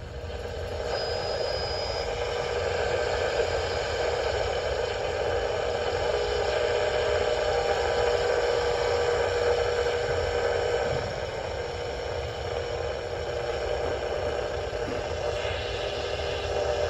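Sony ICF-C492 clock radio's FM receiver hissing with static through its small speaker as the dial is tuned down the band between stations.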